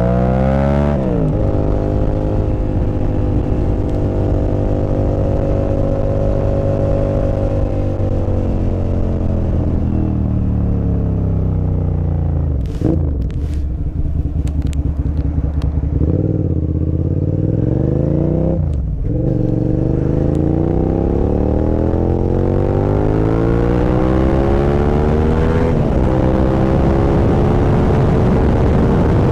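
Suzuki SV650 V-twin with a full exhaust system, heard from the pillion. It revs up through a gear change about a second in, then rolls off with the revs falling, giving a few sharp cracks as they bottom out. It then accelerates hard again, up through two more gear changes.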